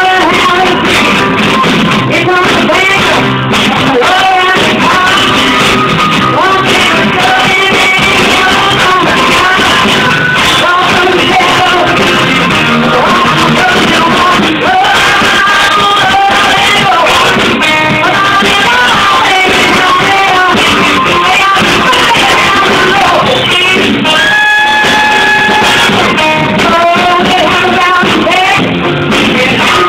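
Live rock band playing loud, with a singer's lead vocal over the instruments; a long held note comes in about 24 seconds in.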